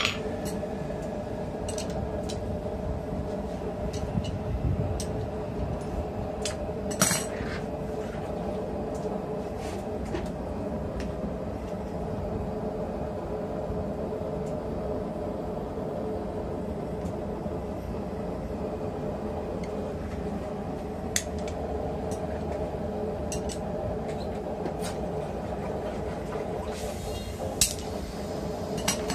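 Steady machine hum with a few sharp metallic clinks of blacksmith's tongs and a top tool set down on a steel die block, the loudest about seven seconds in and near the end.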